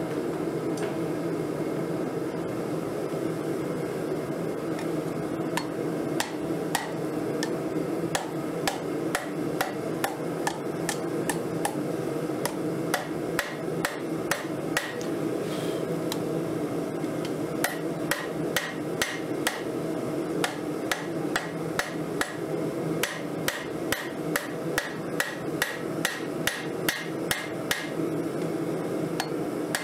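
Hand hammer striking a glowing 1080 high-carbon steel railroad spike on an anvil. The blows come sparsely at first, then settle into a steady rhythm of about two a second, over a steady background drone.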